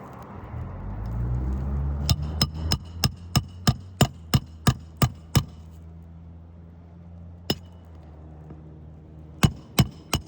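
Hammer driving a roofing nail into an asphalt shingle: a quick run of about a dozen ringing blows, about three a second. A single blow follows, then a few more near the end, over a low steady hum.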